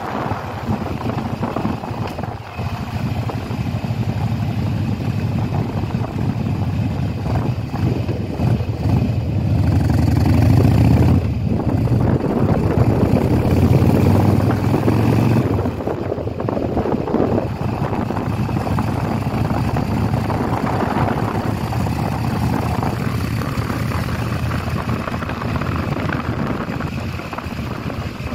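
2000 Harley-Davidson Softail Deuce's 88 cubic inch Twin Cam V-twin engine running while the motorcycle is ridden. It grows louder about nine seconds in, then eases back at about sixteen seconds.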